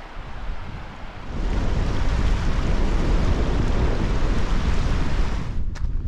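Rushing noise of wind buffeting the microphone over a flowing mountain stream. It swells about a second and a half in and cuts off suddenly near the end. A few footsteps crunch on loose slate just after.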